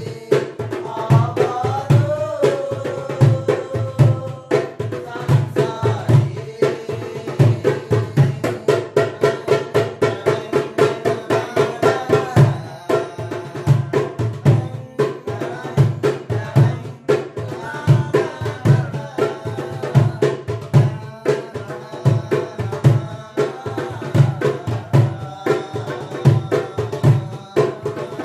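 Darbuka (goblet drum) playing a fast, busy rhythm of deep bass strokes and sharp high strokes, over the melody of a song.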